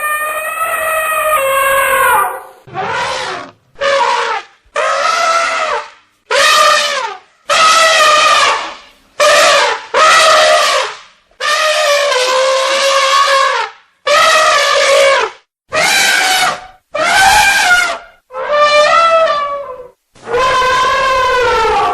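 Elephant trumpeting: about fourteen loud, pitched trumpet calls in a row, each half a second to two seconds long with short gaps between. The pitch of many calls bends and falls away at the end.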